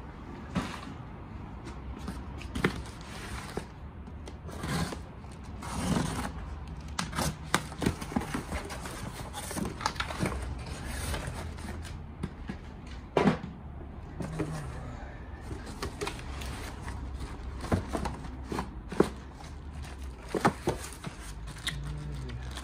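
A cardboard shipping box being handled and opened: scattered knocks, scrapes and crackles of cardboard flaps, packing tape and plastic wrap.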